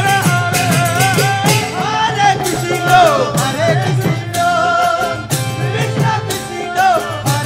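Devotional kirtan: men's voices singing a chant together over a drum and cymbal strikes keeping a steady beat.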